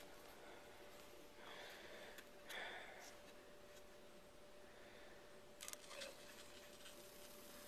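Near silence: a few faint rustles and a couple of soft clicks over a steady faint hum.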